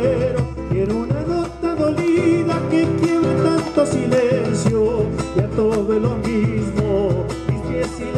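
Live Argentine folk gato: a man singing with a strummed acoustic guitar, over the steady beat of a bombo legüero struck with sticks.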